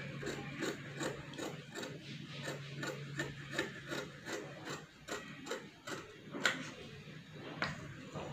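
Large tailor's scissors cutting through cloth on a hard floor: a steady series of crisp snips, about three a second.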